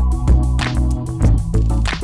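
Electronic-leaning background music with a deep bass line and a steady beat.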